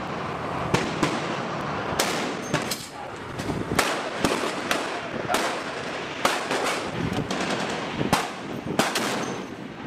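Barrett M107 .50 BMG semi-automatic sniper rifles firing an irregular string of loud single shots, about a dozen over ten seconds, some coming in quick pairs, as more than one rifle engages the target.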